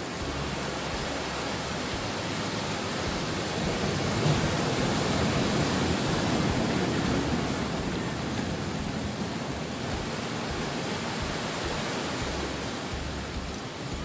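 Sea surf rushing against the shore, a steady wash of noise that swells about four seconds in and eases off again.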